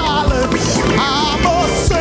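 Live gospel worship music: a voice sings sustained notes with vibrato over a band with a steady drum beat.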